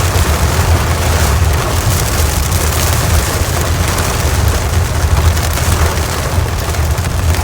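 Heavy rain falling, a loud steady hiss with a deep continuous rumble underneath.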